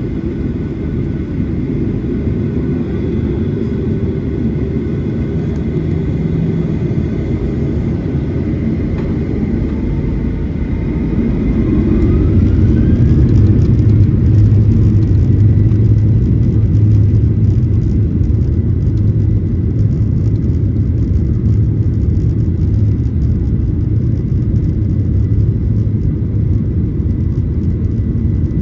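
Cabin noise of a Boeing 737-900ER: a steady low rumble from its CFM56-7B jet engines and the airflow. About ten seconds in, a whine rises in pitch and settles into a steady tone, and the rumble grows louder.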